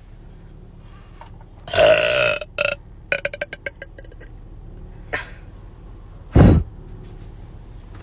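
A person burping: a loud drawn-out burp about two seconds in, then a quick rattling run of short pulses. A brief low blast follows later.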